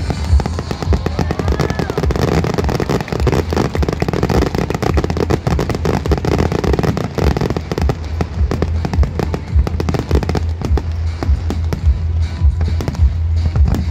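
Aerial fireworks display: many shells and comets firing and bursting in a dense, rapid barrage of bangs.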